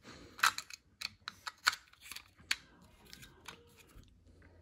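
Scattered, irregular plastic clicks as a toothed plastic Beyblade ripcord is pushed and worked into the slot of its launcher.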